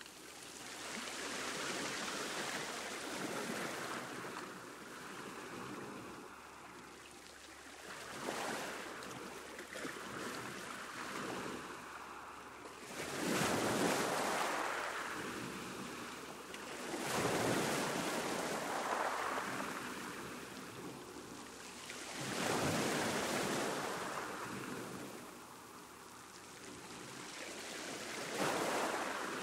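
Ocean waves breaking on a beach, each surge of surf swelling and washing back, in repeated waves every few seconds.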